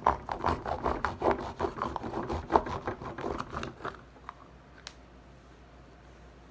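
A plastic bath toy being cut open: a quick run of small snips and scrapes for about four seconds, then a single click.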